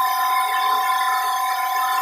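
Volumetric concrete mixer truck running steadily with its PTO engaged, a constant machinery drone carrying a steady whine.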